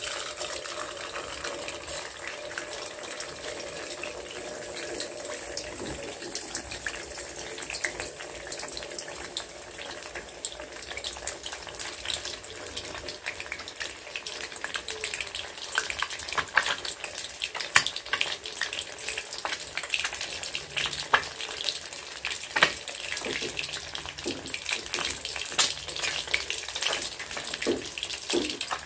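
Eggs frying in hot oil in a wok: a steady sizzle and crackle, with sharp spitting pops that come more often and louder from about halfway through.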